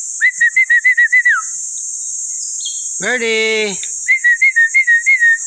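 Two runs of quick, evenly spaced whistled notes, about six a second on one pitch, with a long drawn-out voice call between them, whistled to call a pet bird over. A steady high buzz of insects runs underneath.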